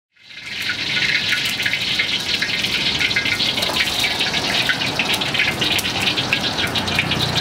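Wok of cooking oil heating over a high gas burner, giving a steady hiss with fine, fast crackling. The oil is being brought to near-smoking before the water spinach goes in. The sound fades up over the first second.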